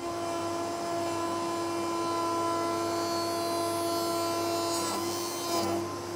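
Router in a router table spinning a tongue-and-groove bit at full speed, a steady high whine, as a rail's end grain is fed across the cutter to cut its tongue. About five and a half seconds in the sound briefly gets louder and changes.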